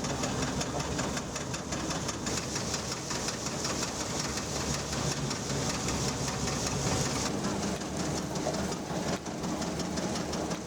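Engine running steadily with a dense hiss of machinery.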